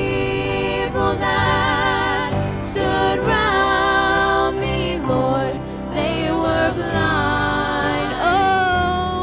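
A gospel vocal group of three women and a man singing a slow song in harmony, with long held notes and vibrato over instrumental accompaniment.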